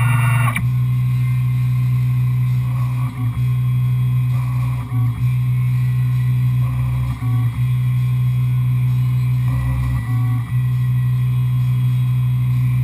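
Tormach 1100M CNC milling machine cutting: a steady low motor hum from the spindle and axis drives, with brief dips every second or two as the cut changes direction.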